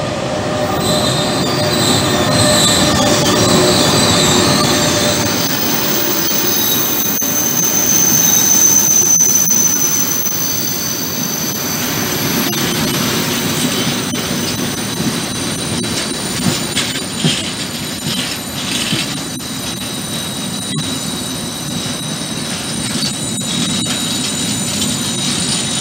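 Electric freight train passing close by: the locomotive goes past, loudest in the first several seconds, then a long string of flat container wagons rolls through. Throughout there is a steady high wheel squeal, and in the second half come repeated clicks of wheels over rail joints.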